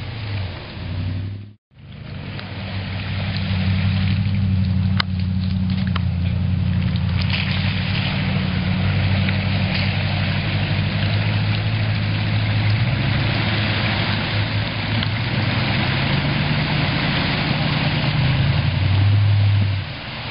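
Toyota Tundra pickup's engine pulling at low revs as the truck churns through mud and water, with a steady splashing hiss of water and mud spray. The engine revs up near the end.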